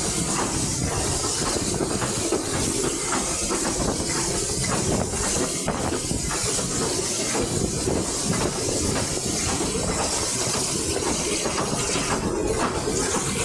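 Passenger train running steadily along the line, heard at an open carriage window: a constant rush of wind over a low rumble of wheels on the rails.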